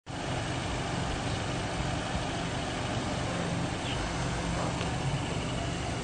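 A car engine idling steadily, with a constant outdoor hiss over it.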